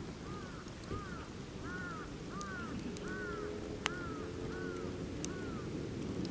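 A crow cawing in a steady series of about two calls a second, over the low rush and scattered sharp pops of a crackling campfire, with one louder pop about four seconds in.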